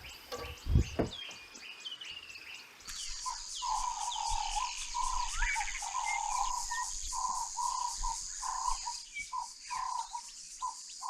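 Wild birds chirping with short falling calls, broken by a single thump about a second in. After about three seconds the sound changes abruptly to a steady high shrill insect drone, with a short note repeated about twice a second.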